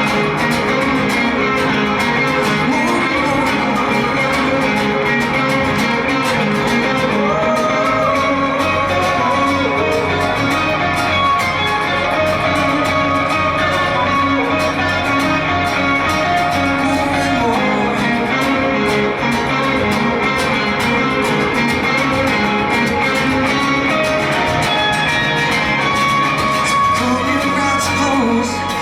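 Live band music with guitar to the fore and a voice singing over it, steady and loud.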